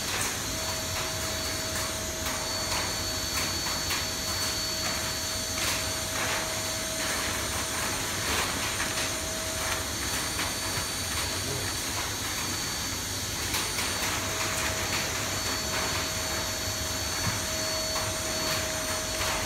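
Vacuum cleaner running steadily with a thin whine, its hose drawing the air out of an aluminium-foil barrier bag wrapped around a machine for vacuum packing, with scattered crackles.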